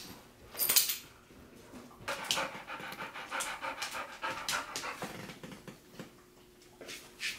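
A large long-haired dog panting in quick breathy strokes, about three or four a second, from about two seconds in, easing off a little after five seconds.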